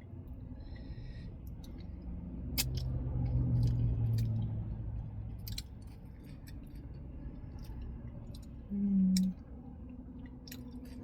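Close-miked chewing of a lettuce-wrapped raw taco, with wet mouth clicks and smacks scattered throughout. A low rumble swells and fades a few seconds in, and there is a short hummed "mm" about nine seconds in.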